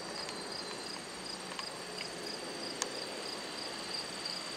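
Insects chirping outdoors: a steady high trill pulsing about three times a second, with a few faint ticks.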